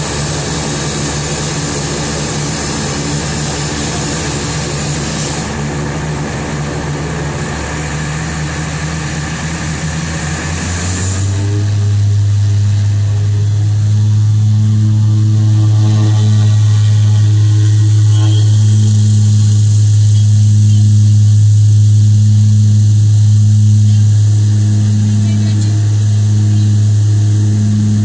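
Twin Garrett TPE331 turboprops of a Dornier 228 heard from inside the cabin, running at low power and then spooling up to take-off power about eleven seconds in. A high turbine whine rises and holds, and a loud, steady propeller drone takes over, with a slow wavering beat between the two propellers.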